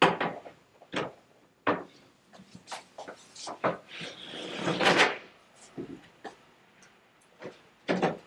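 High-gloss laminate MDF table leaves being set onto an expanding dining table and pushed into place. It makes a series of hollow wooden knocks and clunks, with a sliding scrape lasting about a second and a half around the middle.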